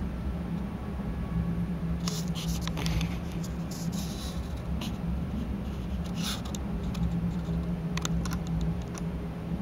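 Steady low hum with scattered light scratching and clicking noises, bunched from about two seconds in and a few more near the end.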